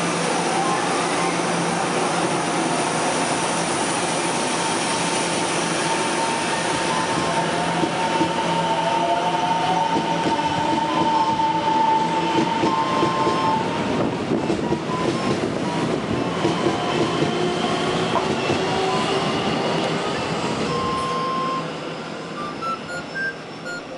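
EMU700 electric multiple unit pulling out and accelerating: traction motor whine gliding in pitch over steady wheel and rail noise. It drops off sharply near the end as the train draws away.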